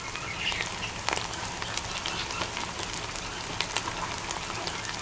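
Onion, ginger and garlic masala with ground spices frying in hot oil in a steel pan: a steady sizzle with frequent small pops and crackles, one louder crack about a second in.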